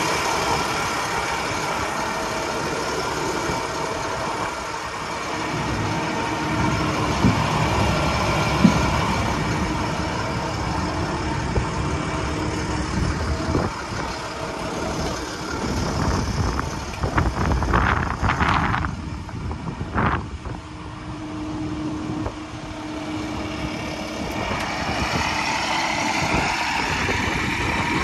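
Truck engine idling steadily, with a few short, louder noises about two-thirds of the way through.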